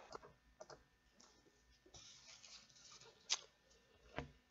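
Near silence: quiet room tone with a few faint clicks, two of them clearer near the end, and a soft rustle.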